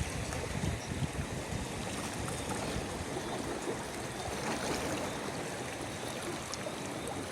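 Seawater lapping and sloshing: a steady wash of noise with small splashes and clicks.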